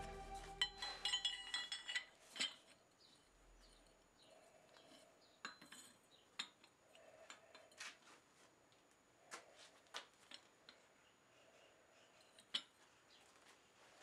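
Faint clinks and light taps of steel on steel: a spring-steel axe drift handled in the anvil and an axe head slipped down over it to check the fit. A few ringing clinks come in the first couple of seconds, then scattered single taps, the sharpest near the end.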